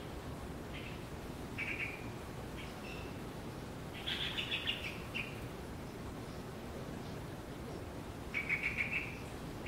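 A small pet bird chirping in short bursts of rapid notes, a few seconds apart, with the longest bursts about four seconds in and near the end.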